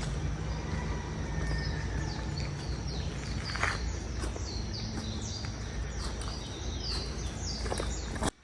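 A bird repeating quick falling chirps over a steady low rumble of outdoor noise; the sound cuts off abruptly near the end.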